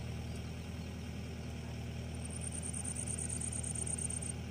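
A diesel engine idling steadily with an even low hum. A thin, high-pitched trill sounds over it for about two seconds from about halfway through.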